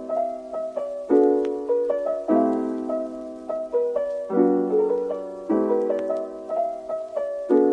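Background piano music: a short, gentle phrase of struck chords and melody notes that repeats.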